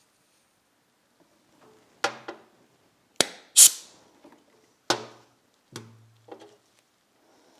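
A series of about seven sharp metallic clanks and knocks, metal parts and tools being handled and set down on a workbench, the loudest about halfway through; a few ring on briefly after the hit.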